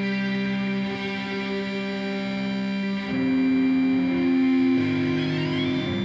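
Electric guitar played through an amplifier: long held notes ringing on, moving to new pitches about three seconds in and twice more near the end, with a faint rising tone high above them near the end.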